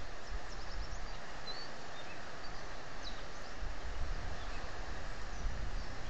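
Wind blowing across an outdoor microphone: a steady rushing hiss with gusty low rumble, strongest near the start and in the last couple of seconds. Faint, brief, high bird chirps come through a few times in the first three seconds.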